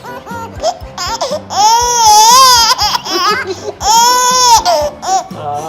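A baby crying: two long, high, wavering wails, the first starting about a second and a half in and the second about two seconds later.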